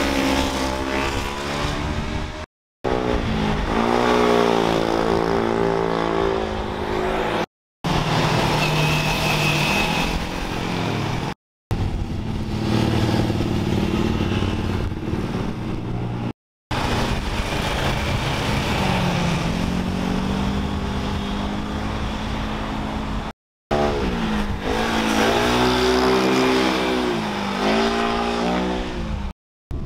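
Sports motorcycle and car engines passing one after another, revving up and down through the gears, in a string of short clips with abrupt silent breaks between them.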